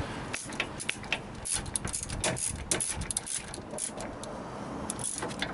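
Scattered light metallic clicks and clinks, with short scrapes in between: hand tools and bolts being handled during work under the truck.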